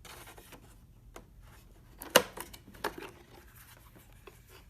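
A few light clicks and knocks from a slide projector's handheld remote being handled. The sharpest comes about two seconds in, with another just under a second later.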